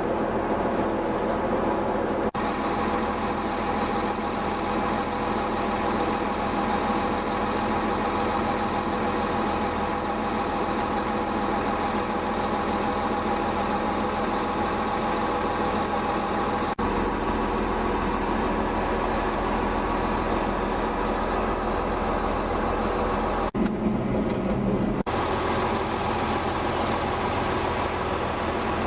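Bulldozer's diesel engine running steadily, a continuous drone that changes abruptly a few times.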